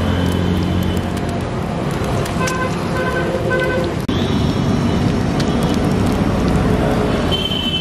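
Steady street traffic noise with oil sizzling on a flat iron griddle, and three short horn toots about three seconds in.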